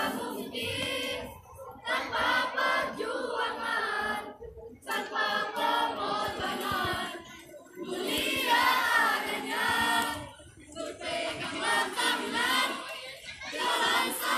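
A group of voices singing together in unison, in phrases of about three seconds separated by brief pauses.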